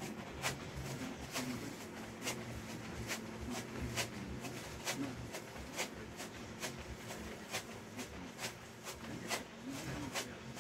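Rhythmic landings of sneakers on a foam exercise mat during jumping jacks, a sharp tap about twice a second at an even pace, over a steady low hum.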